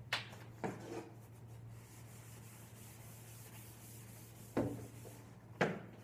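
Blackboard eraser rubbing chalk off a blackboard, a dry scraping hiss. A few sharp knocks come through it: one at the start, one about half a second in, and two near the end about a second apart.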